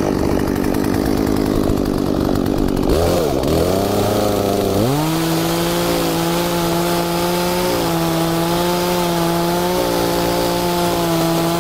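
Chainsaw cutting through an apple tree limb. Its pitch dips and climbs again about three seconds in, then holds steady and high for the rest of the cut.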